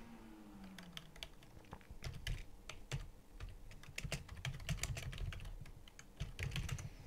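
Typing on a computer keyboard: a run of light, irregular key clicks starting about a second in, as a short command is typed.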